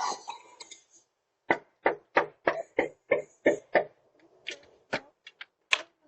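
Rapid knocking on a door: a run of about eight knocks, about three a second, then a few more scattered knocks near the end.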